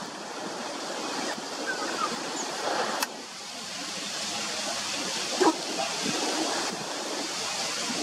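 Steady rushing noise of wind on the microphone, with a single sharp click about three seconds in.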